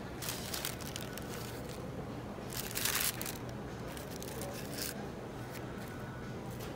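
Printed paper wrapper and basket liner crinkling and rustling as a hand handles it and picks through fries. There are a few short crinkles, and the loudest lasts just under a second, about two and a half seconds in.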